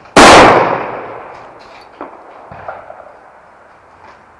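A single loud rifle shot just after the start, ringing and echoing away over about a second and a half, followed by a few faint clicks and knocks.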